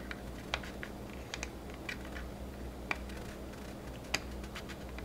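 A few small, sharp clicks and taps of plastic model-kit parts being handled and pressed together, spaced irregularly over a faint steady hum.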